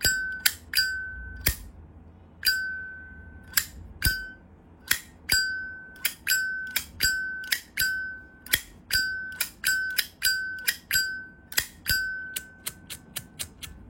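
Zippo lighter's hinged metal lid flicked open and snapped shut again and again, each opening a sharp click followed by a brief, clear, bell-like ring. Near the end the flicks come faster.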